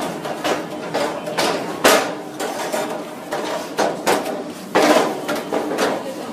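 Footsteps going down a staircase, a sharp step about twice a second.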